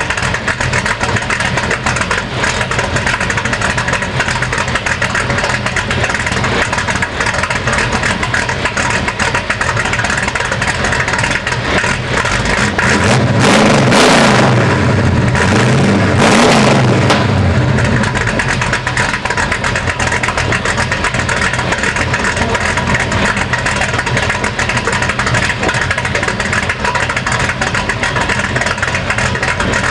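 1965 Dodge Coronet's 440 stroker V8 with a racing cam and headers idling steadily. It is revved twice about halfway through, each rev rising and falling back to idle.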